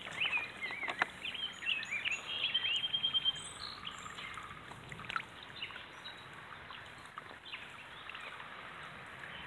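Small songbirds chirping, with a short trill about three seconds in; the calls thin out after about four seconds, leaving a steady faint outdoor hiss.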